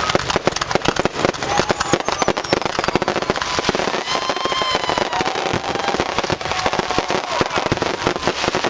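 Aerial fireworks bursting in quick succession, a dense run of bangs and crackling stars, with a whistling tone about halfway through.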